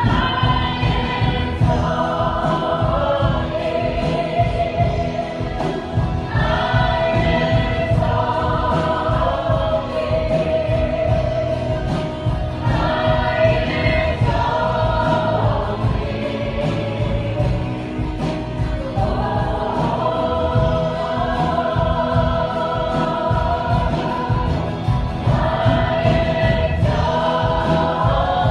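Christian worship song: voices singing long held phrases over a band with a steady beat.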